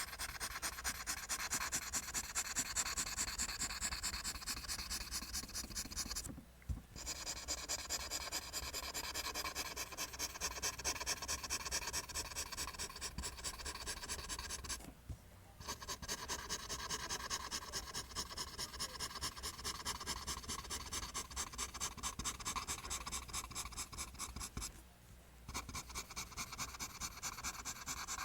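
Pencil scratching across paper in fast, even back-and-forth strokes, drawing lines. The strokes stop briefly three times, as the pencil lifts between runs of lines.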